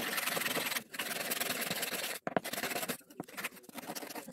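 Sandpaper rubbed by hand inside the bowl of a carved wooden ladle: two long sanding strokes, then shorter, quicker strokes from about two seconds in.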